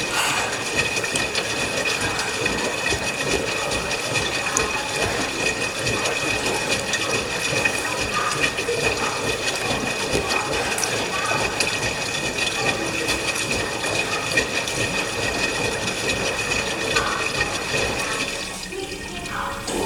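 LG washing machine taking in water: a steady rush of water with a thin high hiss, cutting off about a second before the end.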